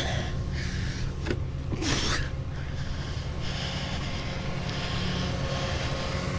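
Rollback tow truck's engine idling steadily, with a few short breathy noises over it in the first two seconds.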